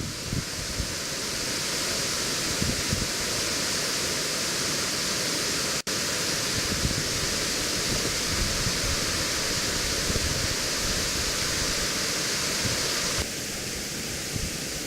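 Steady rushing roar of a 48-metre waterfall, an even hiss of falling water. It breaks off for an instant about six seconds in and drops slightly in level near the end.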